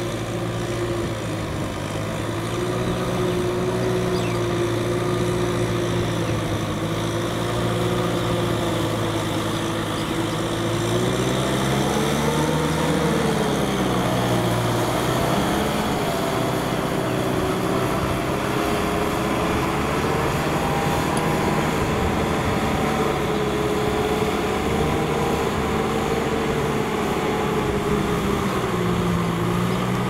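Kubota M6040SU tractor's diesel engine running steadily under load as it pulls a disc plough through field soil. Its pitch wavers up and down for a few seconds near the middle, then settles again.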